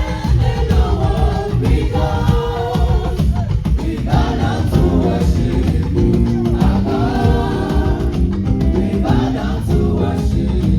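A choir singing with a band accompaniment, carried by a strong bass and a steady drum beat.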